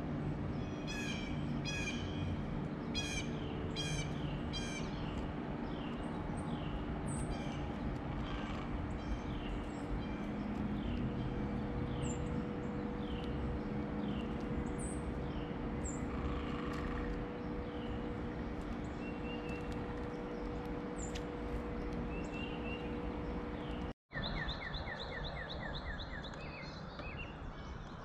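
Wild songbirds chirping and calling over a steady outdoor background hiss. A run of short, quickly repeated calls comes in the first few seconds and scattered chirps follow. After the sound cuts out for an instant near the end, a fast trill begins.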